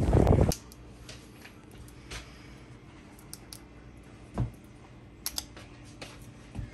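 Wind buffeting the microphone for about half a second, cut off suddenly. Then a quiet kitchen with a faint low hum and a few scattered light clicks and taps, the loudest about four and a half seconds in.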